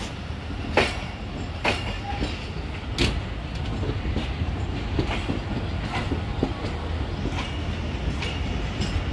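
Shah Latif Express passenger train rolling out of the station, its wheels clicking over rail joints and points above a steady low rumble, heard from an open coach door. The sharpest clicks come in the first three seconds, then lighter ones about once a second.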